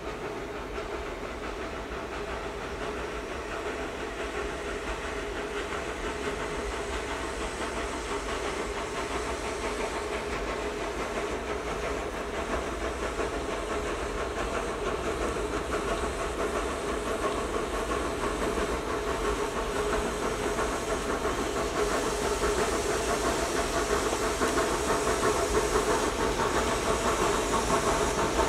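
Narrow-gauge steam locomotive working with a train, its steam exhaust hissing and rumbling, growing steadily louder as it approaches.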